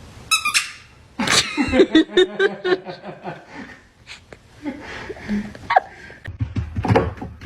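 A short, high-pitched squeak about half a second in, then a burst of choppy laughter that fades into scattered softer sounds.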